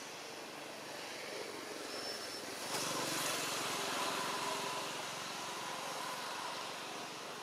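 Engine noise of a passing motor, swelling to its loudest about three seconds in and then slowly fading.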